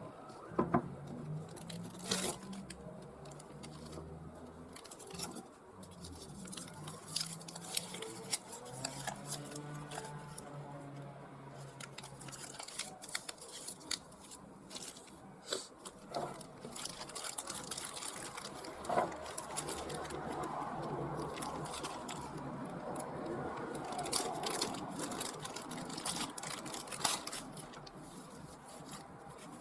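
Small objects being handled: rustling with many sharp clicks and taps.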